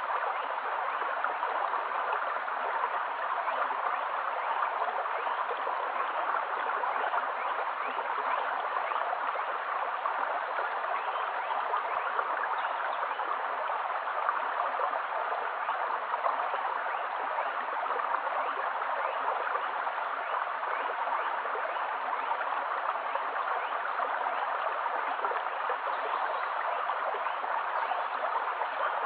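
Shallow stream running over a stony bed, a steady babble of flowing water.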